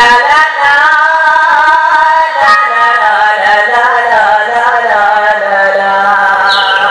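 A singer's voice, amplified through a stage microphone, singing a drawn-out melody that rises and falls.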